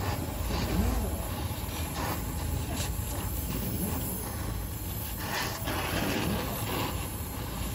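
Gas welding torch flame hissing steadily over a low rumble while steel is being welded with a filler rod.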